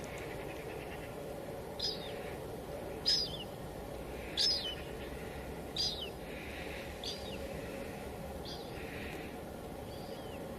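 Steady hiss of light drizzling rain on a window, with a bird calling repeatedly over it: short, sharp chirps that fall in pitch, about one every second and a half.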